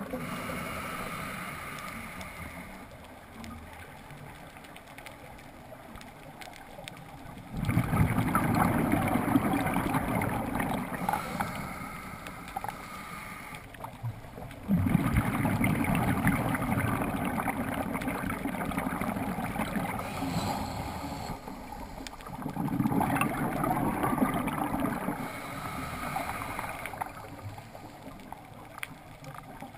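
Scuba diver's own regulator breathing heard underwater through the camera housing. There are three long exhalations, each a burst of bubbling rumble lasting a few seconds, with quieter inhalation pauses between them.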